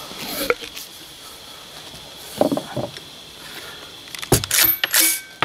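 A golf ball dropped into the muzzle of a Can Cannon golf-ball launcher tube slides down with a short falling tone and a thump. Near the end come several sharp metallic clacks as the launcher is handled and charged for its blank.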